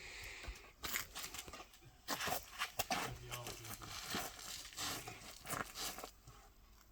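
Irregular rustling and clicking handling noises, with no gunshot: a shooter's clothing, gear and rifle being moved between shots.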